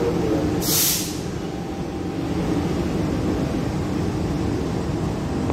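Steady low rumble of a train in motion, heard from on board, with a short sharp hiss just under a second in.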